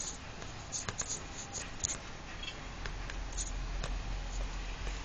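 Irregular light clicks of a laptop's pointer buttons, a cluster in the first two seconds and a few more later, over a low steady hum.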